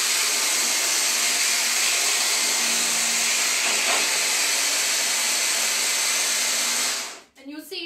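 Hand blender with a chopper attachment running at one steady speed, whizzing a hazelnut mixture; it cuts off suddenly about seven seconds in.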